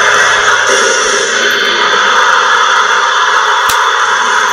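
A packed arena crowd screaming and cheering in one continuous roar, a wrestling crowd's "pop" at a surprise return, starting abruptly.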